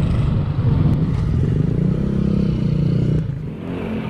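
A motor vehicle's engine running with a steady rumble, its pitch climbing a little before it drops off about three seconds in.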